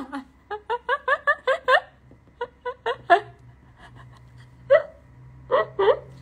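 A woman laughing hard in quick, short bursts, about five a second at first, then in fewer, scattered bursts.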